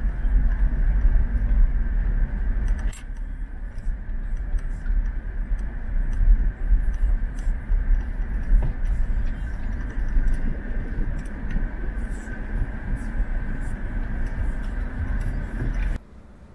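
Road noise inside a moving car's cabin: a heavy low rumble from engine and tyres, with a faint steady tone above it and scattered light clicks. Near the end it cuts off abruptly to much quieter outdoor ambience.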